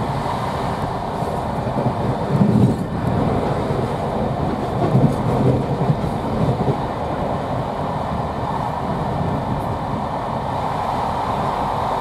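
Steady running noise of a railway carriage travelling at speed, heard from inside the coach, with louder low rumbles about two and a half seconds in and again around five to six and a half seconds.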